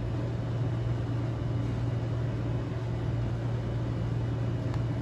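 Steady low drone with a faint hiss, unchanging throughout; no cat sounds stand out.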